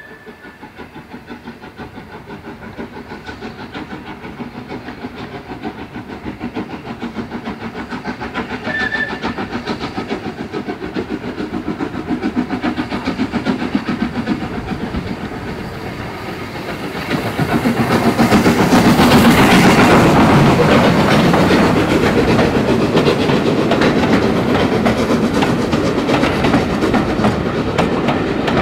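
SR Schools Class 4-4-0 No. 30925, a three-cylinder steam locomotive, pulling away with a train, its rhythmic exhaust beats growing louder as it approaches. The sound peaks about 18 seconds in as the engine passes close by, then the coaches roll past with a clickety-clack of wheels over rail joints.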